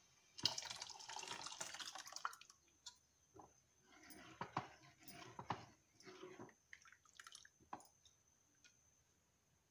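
A thick liquid mixture of ground cassava and coconut milk poured from one clay pot into jaggery syrup in another, splashing for about two seconds. Then a ladle stirs and scrapes in the clay pot with short soft knocks.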